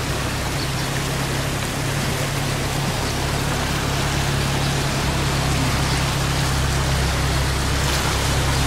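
A vehicle's engine running steadily at low speed while it drives through floodwater, with the continuous rush and splash of water pushed aside by the wheels, slowly growing a little louder.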